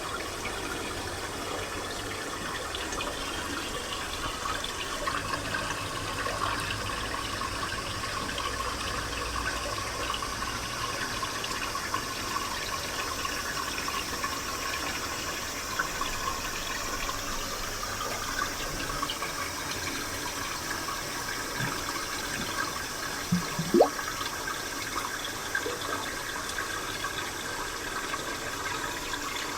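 Japanese spring water flowing and splashing steadily, an even rushing trickle. There are a few faint clicks, and a short, sharper sound near the end.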